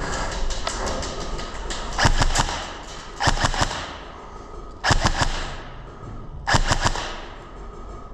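Airsoft guns firing short full-auto bursts of rapid clicking pops: four bursts about a second and a half apart, after a few scattered single shots at the start.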